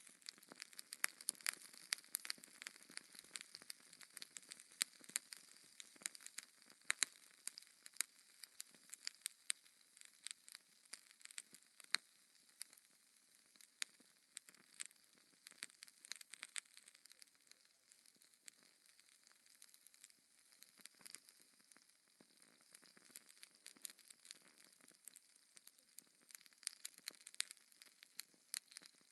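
Fireplace fire crackling, with many irregular sharp pops over a faint hiss; the pops thin out a little around the middle.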